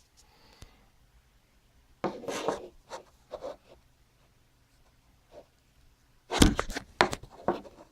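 Handling noise from small electronics and cables on a desk: a few bursts of clicks and scrapes, the loudest cluster near the end.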